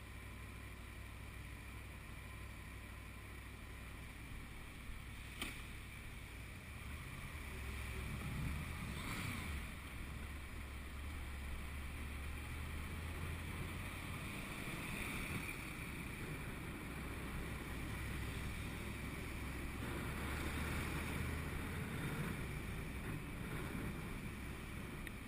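Honda VFR800's V4 engine heard muffled through a helmet-mounted camera case: idling at first, then pulling away about eight seconds in and running at low speed through traffic, with wind rush on the microphone. A single sharp click about five seconds in.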